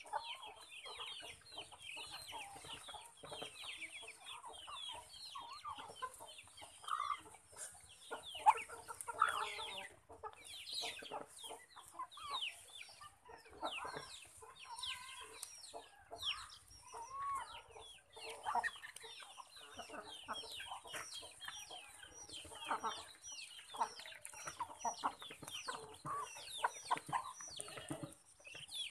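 A mixed flock of chickens and ducks feeding, with many overlapping clucks and short, high chirps throughout.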